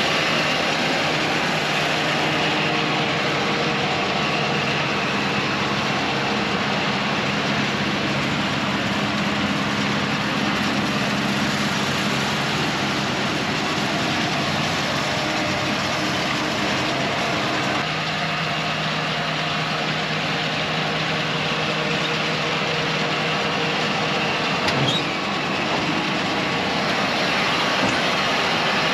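Tractor engine running steadily under load as it pulls a John Deere round baler through windrowed hay, with the baler's pickup and chamber working. A brief clunk near the end comes as the baler's tailgate opens to drop a finished round bale.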